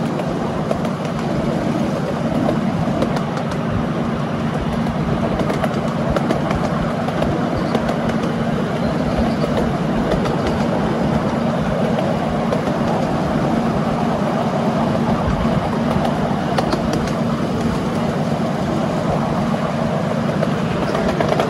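Ride-on miniature railway train running along its track: a steady rumble and hum of the wheels and drive, with scattered clicks from the rails.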